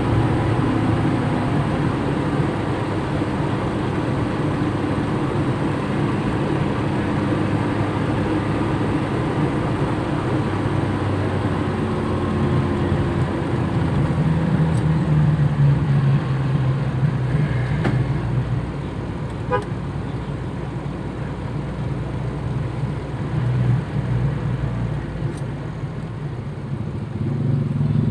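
Toyota Kijang cars driving in convoy: steady engine and road noise, with short car-horn toots partway through as the cars honk at each other.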